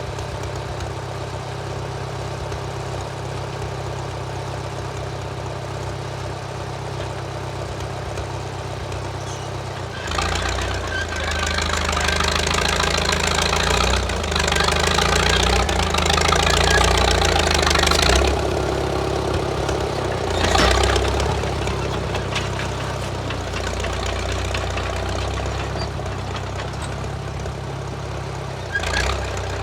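Engine of a 1934 Caterpillar crawler bulldozer running at an even beat, then growing louder and busier about ten seconds in as the dozer works under load, easing off after about eight seconds with one more brief surge.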